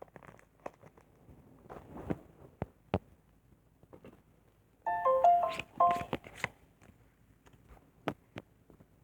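Light scattered taps and crinkles of trading cards and packs being handled. About five seconds in, a brief electronic jingle of short stepped notes, like a phone ringtone or notification, plays for about a second and a half and is the loudest thing.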